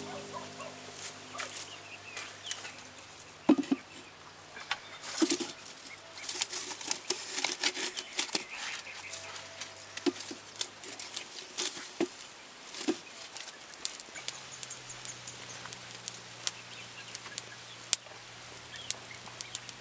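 Wood cooking fire crackling, with irregular sharp pops from the burning logs, the loudest about three and a half and five seconds in.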